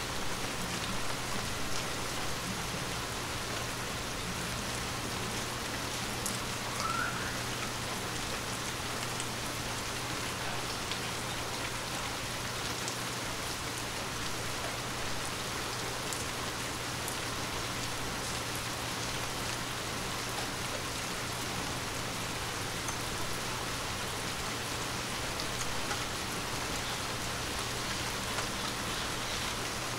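Steady rain falling on trees and foliage, an even hiss with scattered close drops ticking.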